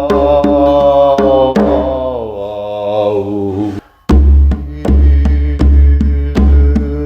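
Meditative song: a chanted vocal melody over a steady hand-drum beat of about three to four hits a second. The melody holds and slides downward, the music breaks off for a moment about four seconds in, then the drum comes back with a deep pulsing bass.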